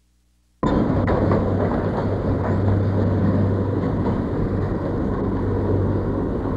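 Leonard's M&O Subway electric car running along its rails: a steady rumble with a low hum, cutting in suddenly about half a second in.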